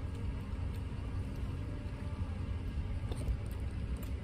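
Steady low rumble of a car heard from inside its cabin, as of the car idling, with a faint steady hum over it. A few faint light clicks about three seconds in.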